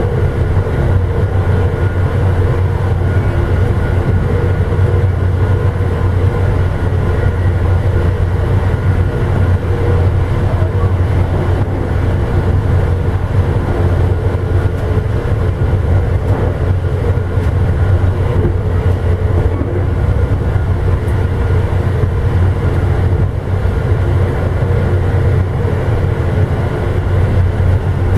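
Steady rumble of an Amtrak passenger train under way, heard from inside its rear car: wheels running on the rails and the car's running noise, with a faint steady hum above it.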